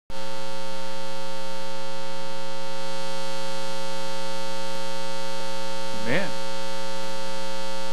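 Steady electrical mains hum with a buzzy stack of overtones, loud and unchanging. About six seconds in, a brief rising voice sound.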